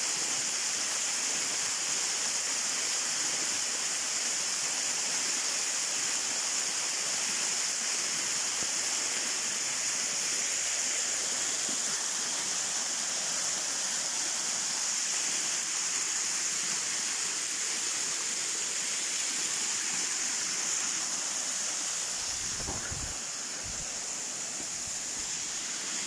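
Waterfall pouring down a rock face and splashing into a shallow pool, a steady hiss-like rush of water, a little quieter near the end.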